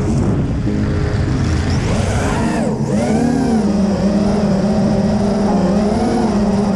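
Racing quadcopter's brushless motors and three-blade 5-inch propellers whining in flight, heard from the camera mounted on the frame, the pitch swooping up and down with throttle over a rush of wind noise.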